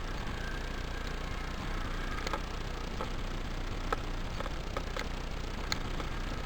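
A steady hiss with a scatter of light, sharp clicks, about eight of them at uneven intervals in the second half.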